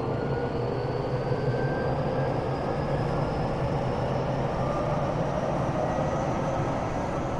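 Tokyo Metro 8000-series electric train running, heard from inside a passenger car: a steady rumble of wheels and track with a faint traction-motor whine rising slowly in pitch as the train gathers speed.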